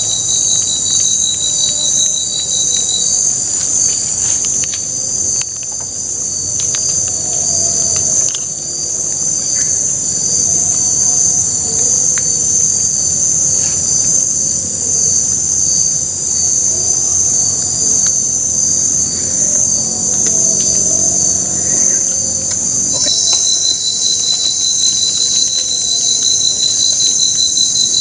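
Tropical forest insects chirring in a steady high-pitched chorus, with one rapidly pulsing trill that stops about three seconds in and comes back near the end.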